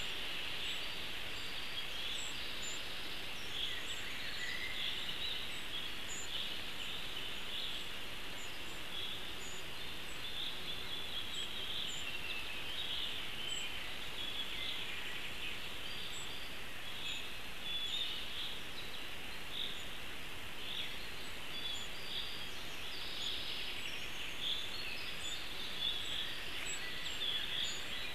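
Forest songbirds chirping and singing, many short high notes over a steady background hiss, as picked up by a nest webcam's microphone.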